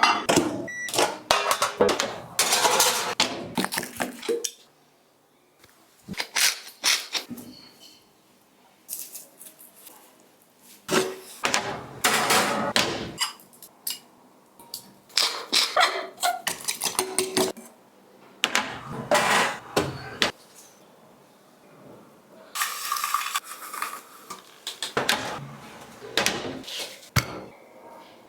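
Kitchen food-preparation sounds: bowls, pans and utensils knocking, clattering and scraping in separate bursts a second or two long, with quiet gaps between them.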